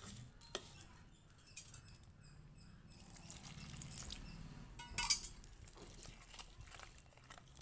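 Metal spoon stirring a thick, lumpy flour-and-curd batter in a bowl: soft wet stirring with scattered clicks and scrapes of the spoon against the bowl, loudest about five seconds in.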